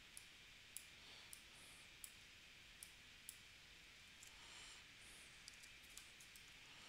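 Faint, scattered clicks of a computer mouse and keyboard, about a dozen short sharp clicks at uneven intervals over quiet room tone.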